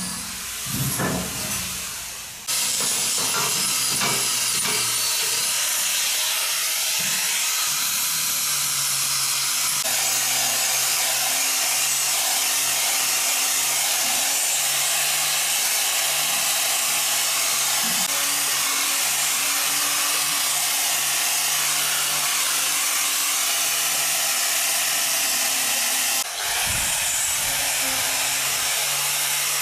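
A power tool working stainless-steel tubing: a loud, steady hiss with a low hum beneath it, starting about two seconds in and briefly dipping near the end.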